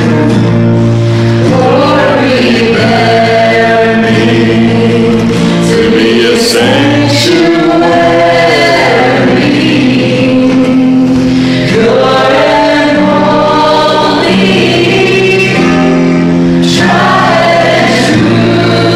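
A woman singing a gospel-style worship song solo into a handheld microphone, over accompaniment of sustained chords with choir-like backing voices.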